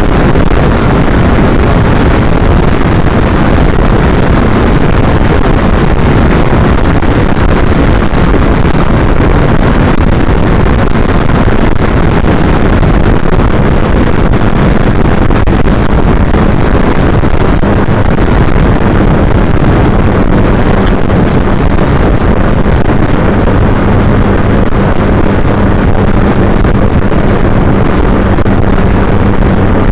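Steady rushing wind noise on the microphone of a moving 2010 Triumph Bonneville T100 motorcycle, with the low hum of its parallel-twin engine running under it, clearer in the second half.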